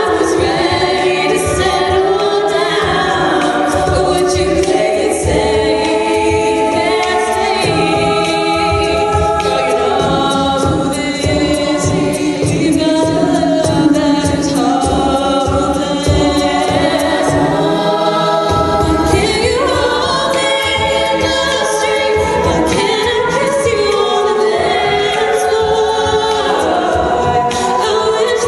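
All-female a cappella group singing into microphones: a lead voice over sustained backing harmonies, with a steady beat underneath.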